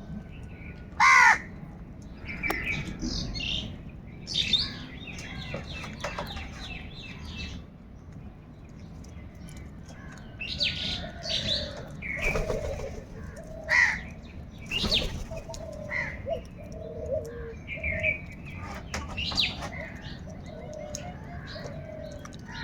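Crows cawing repeatedly in short harsh calls, the loudest about a second in, with smaller birds chirping among them.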